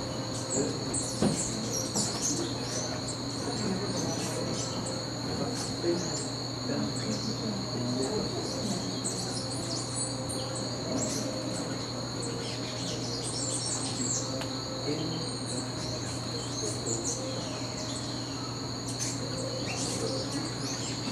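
A steady high-pitched insect trill with scattered short bird chirps, typical tropical forest ambience.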